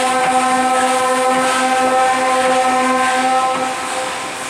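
Steam whistle of Baldwin 0-6-0 locomotive No. 58 blowing one long, steady note over hissing steam; the whistle stops about four seconds in.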